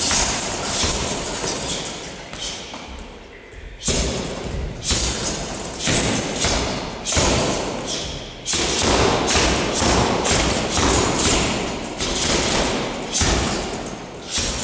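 Gloved punches and knee strikes thudding into a hanging heavy bag in a fast, uneven series of about two hits a second, with a short pause a couple of seconds in.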